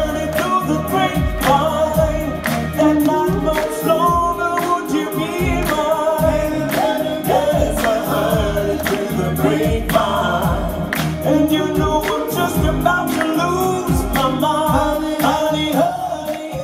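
A vocal group singing an old Motown classic with band backing, several voices together over a steady drum beat.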